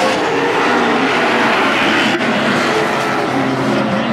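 Pack of Modified race cars' engines running hard around a short oval track, several engine notes overlapping and shifting up and down in pitch.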